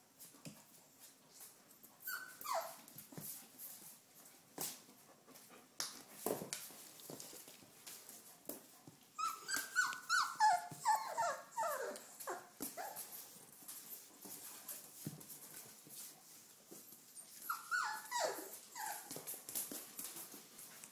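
Four-week-old Doberman Pinscher puppies whimpering in high squeals that fall in pitch: one about two seconds in, a quick run of them midway, and a few more near the end. Soft clicks and smacks are scattered between them.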